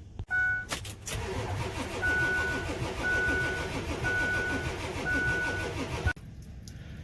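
A Ford 7.3 Powerstroke V8 diesel cranking on its starter for about five seconds without catching, then cutting off abruptly. A cab warning chime beeps about once a second throughout, four times.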